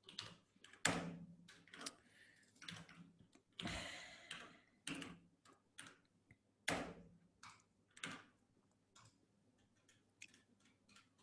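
Faint, irregular computer keyboard and mouse clicks, a few keystrokes at a time, with a slightly longer burst of clatter about four seconds in.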